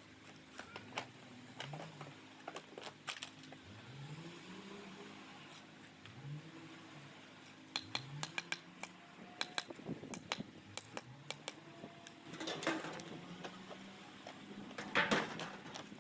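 Masonry tools on concrete blocks and mortar: many sharp clinks and taps as the trowel and hammer strike and set the blocks, with two longer scrapes near the end.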